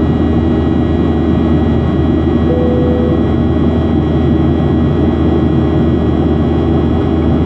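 Steady jet airliner cabin noise at a window seat during the climb after takeoff: the engines' even roar with several steady engine tones running through it. A short single tone sounds briefly about two and a half seconds in.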